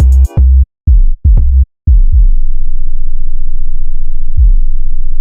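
Electronic music: a few heavy bass-drum hits that fall in pitch, then a long, loud, low buzzing bass tone, with one more kick near the end.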